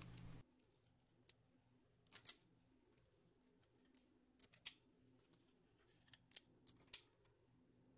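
Near silence, broken by faint short clicks from a squeeze-handle cookie scoop as it releases balls of cookie dough onto a baking sheet, scattered through several seconds.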